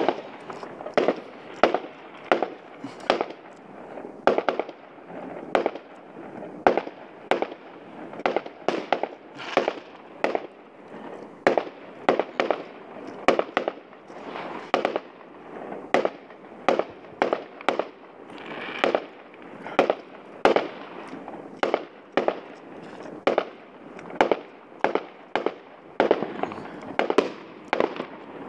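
Aerial fireworks bursting in a continuous, uneven barrage of sharp bangs, roughly two a second, each trailing a short echo.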